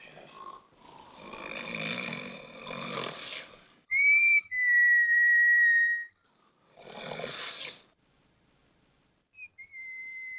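A man snoring, each rasping breath followed by a high, steady whistle: two snore-and-whistle cycles, the first whistle starting about four seconds in and the second near the end. It is a comic sleep sound gag.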